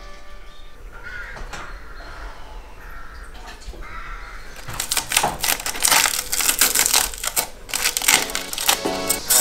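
Background electronic music, quiet and sparse at first, then a busy, rapid clicking beat from about halfway through.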